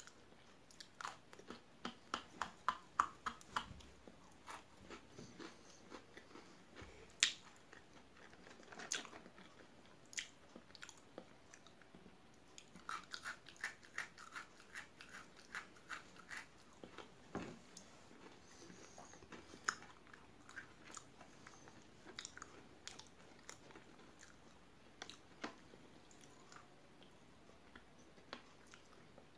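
Pocky biscuit sticks being bitten and chewed up close, giving crisp crunches. Quick runs of crunches come near the start and again about halfway through, with a few sharper single snaps in between.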